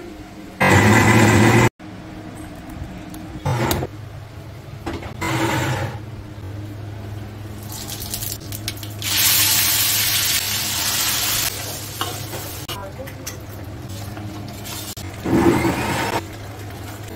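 A mixer grinder runs for about a second, then stops abruptly. After that, oil and masala sizzle in a hot iron kadhai as ingredients go in and are stirred with a steel spoon, with the longest sizzle in the middle, over a steady low hum.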